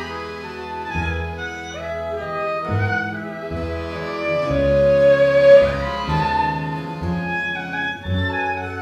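Live Gypsy-style acoustic ensemble music: two violins carry the melody, sliding up in pitch about two and six seconds in and holding one long loud note around the middle, over double bass, guitar and accordion.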